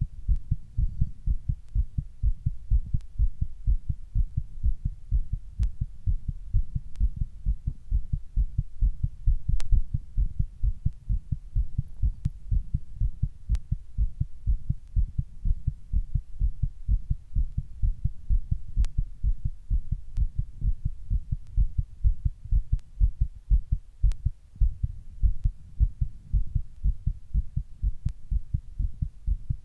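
Fast human heartbeat recorded up close: a steady, rapid run of deep, low thumps, several a second, with a few faint clicks over it.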